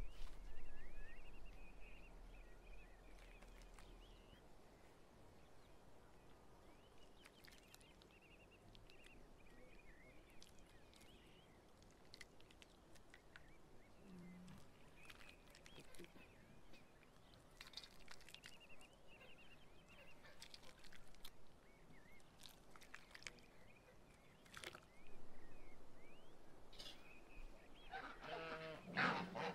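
Quiet farmyard with faint bird chirps and a few clinks and knocks of cooking utensils. Near the end a flock of white domestic geese starts honking loudly.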